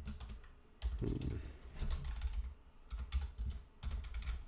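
Typing on a computer keyboard: irregular runs of keystrokes broken by short pauses.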